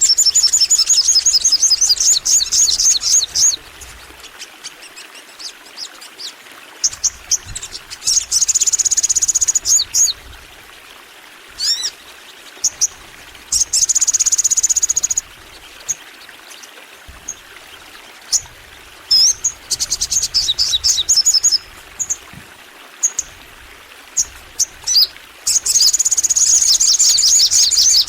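A Sogon bird in full, energetic song: long runs of rapid high-pitched trilling, each lasting a couple of seconds and coming back every five or six seconds, with single sharp chirps in between.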